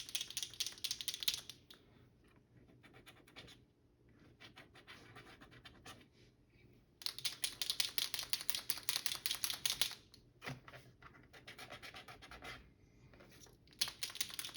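Birchwood Casey sight touch-up paint pen being shaken, its mixing ball rattling rapidly in bursts a few seconds long, with quieter scratching between the bursts.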